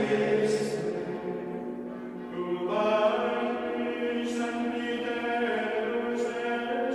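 Background music: a choir chanting in long held notes, with a new phrase entering about three seconds in.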